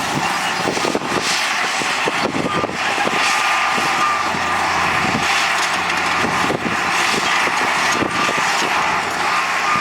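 Heavy diesel construction machinery running under load, a steady mechanical din with frequent short metallic clanks and knocks.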